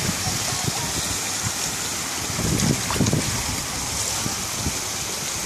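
Water falling steadily over an artificial stone waterfall, a continuous splashing hiss.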